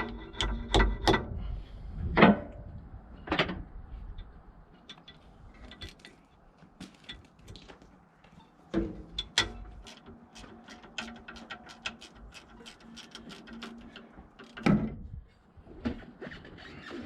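Metal hand tools and parts clanking and knocking in a workshop, with a long run of quick, even clicks, about three a second, through the middle.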